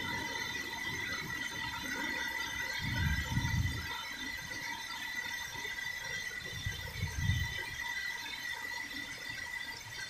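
Rainy-afternoon ambience: a steady high-pitched whine over a faint hiss, with low rumbles about three seconds and seven seconds in.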